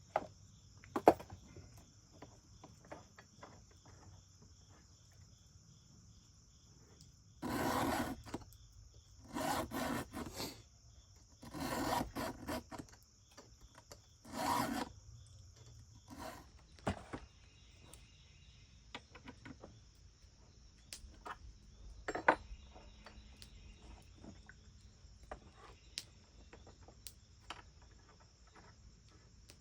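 Hand file rasping across the cutters of a chainsaw chain during sharpening: four strokes about two seconds apart in the middle, with scattered light clicks and taps between.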